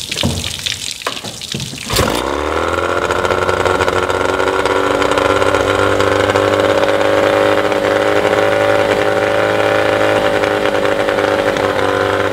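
Yamaha 20 hp two-stroke outboard motor, cowling off, started by its pull cord: a couple of seconds of cranking rattle, then it catches about two seconds in, the revs rise briefly and it settles into a steady idle. It is idling with the ignition firing a few degrees before top dead centre, ahead of the 7° after-TDC idle timing it is being set to.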